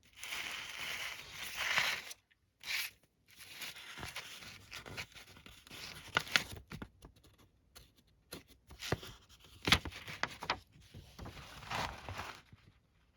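Paper pages of a fan's owner's manual being turned and handled: irregular rustling with a few sharper snaps as pages flip.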